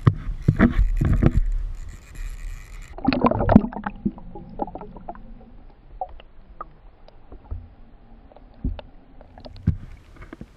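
Commotion aboard a small fishing boat: about two seconds of rough clattering with a low rumble, a second burst about three seconds in, then scattered sharp knocks and taps on the boat.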